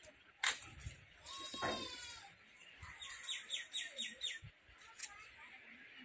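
A sharp click near the start, then wild birds calling: one drawn-out call about a second and a half in, and a quick run of six high chirps, about five a second, around three to four seconds in.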